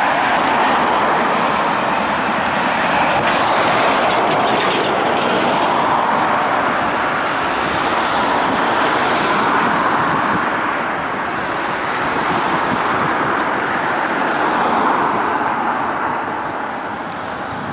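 Steady rushing noise of passing vehicles, easing off slightly near the end.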